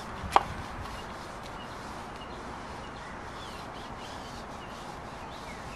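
Outdoor background with a steady low hiss and scattered faint bird chirps, broken by one sharp click about half a second in.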